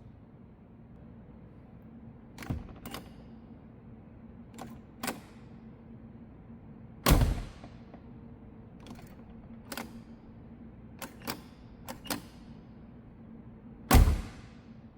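A car door shutting with a solid thud twice, about seven seconds apart, with lighter clicks and knocks in between.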